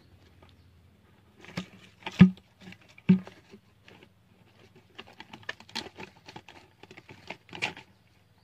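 Close handling noise: scattered light clicks and rustles, with two louder knocks about two and three seconds in, then a run of quick small clicks from about five seconds in.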